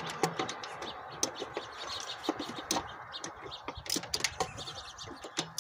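Irregular metal clicks and clinks of a hand ratchet and socket being worked on an engine bolt.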